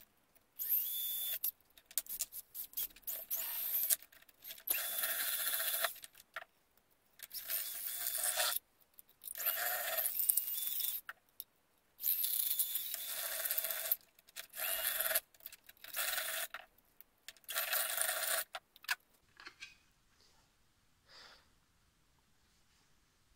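Cordless drill running in about nine bursts of one to three seconds each, with a steady motor whine, as its bit cuts a hole through a 3D-printed plastic case panel. The drilling stops about 19 seconds in.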